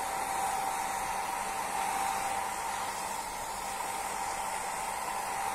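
Hair dryer blowing steadily: a constant rush of air with a steady whine from its motor.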